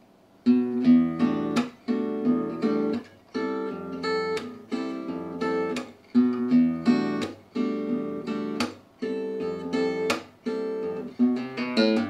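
Gypsy jazz acoustic guitar strumming chords in a steady rhythm at tempo, starting about half a second in. It alternates between an E minor 9 and an F major 7 chord, with brief stops between strokes.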